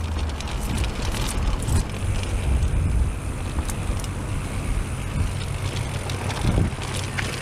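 Brusko Kalis full-suspension mountain bike riding fast down a dirt trail. Wind rumbles on the camera microphone over tyre noise, with frequent short clicks and rattles from the bike, which the rider finds a little noisy in the fork and rear shock.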